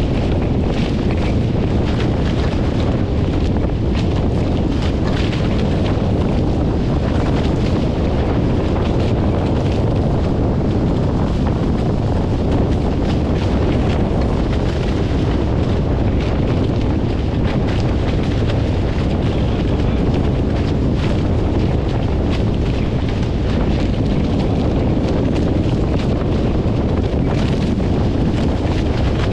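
Strong wind buffeting the microphone: a loud, steady rumble with hiss above it and scattered small crackles.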